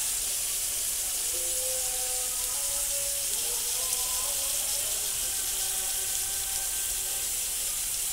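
Marinated chicken pieces sizzling steadily in hot oil in a frying pan, a constant high hiss.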